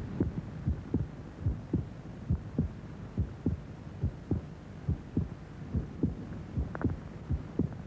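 Heartbeat sound on the soundtrack: steady low lub-dub double thumps repeating a little faster than once a second.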